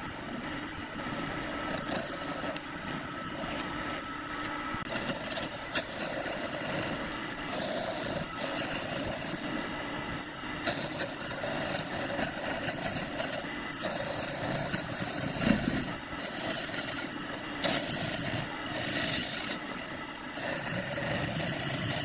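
Wood lathe running, with a turning tool cutting into the spinning wood in a continuous scraping rasp that comes and goes as the tool is worked, stronger in the second half.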